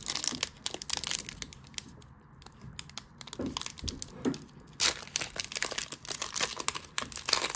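A 2023 Donruss football card pack's wrapper being torn open and crinkled by hand: a run of crisp crackles and tearing, with a quieter lull about two seconds in and louder crackling again after about five seconds.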